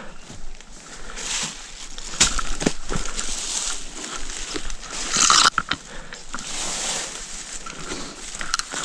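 Footsteps on damp leaf litter and the rustle of ferns and branches brushing past as a person pushes through dense bush undergrowth, with the loudest brushing scrapes about two to three seconds in and around five seconds in.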